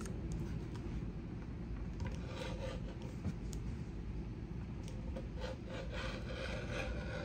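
Rotary cutter blade rolling through folded swim fabric onto a cutting mat, in a series of short cutting strokes.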